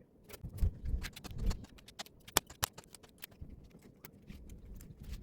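Irregular light clicks and taps of tools and parts being handled on a workbench, several a second, with one sharper click a little over halfway through.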